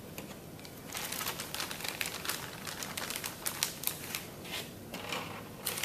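Plastic bag of rebuild-kit seals and gaskets being handled and rummaged through, crinkling, with a quick run of small crackles and clicks that eases briefly shortly before the end.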